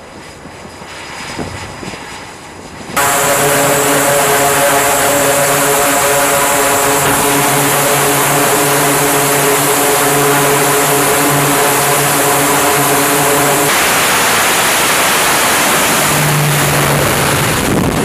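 Faint flight-deck noise, then about three seconds in the loud, steady drone of an E-2 Hawkeye's twin turboprop engines and propellers running at high power, with several even tones over a wide rush of noise. The drone shifts in character near the end.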